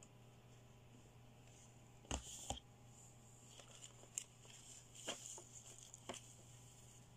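Hard plastic toy pieces being handled: a few light clicks and taps, the loudest pair about two seconds in, over a low steady hum.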